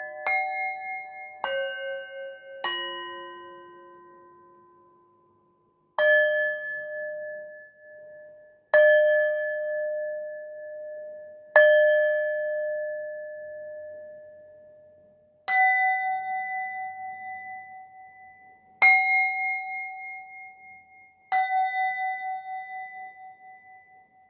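Singing bowls of several pitches struck one at a time, about nine strikes at uneven gaps of one to four seconds. Each tone rings on and fades slowly.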